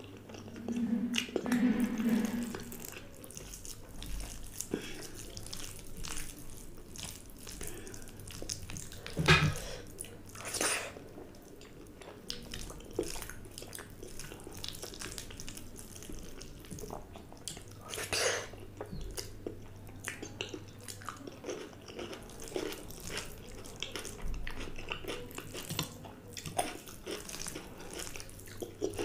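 Close-miked eating sounds: chewing and wet mouth clicks, with fingers squelching through water-soaked fermented rice (pakhala bhaat) mixed with mashed greens. A louder sharp sound about nine seconds in, and a few more later, over a faint steady low hum.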